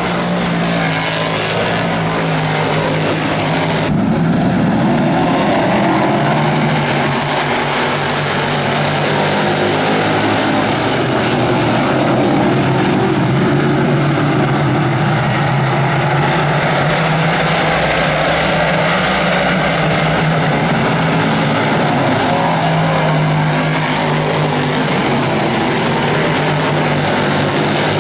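A field of dirt modified race cars running laps together, their V8 engines making a loud, steady drone of overlapping engine notes.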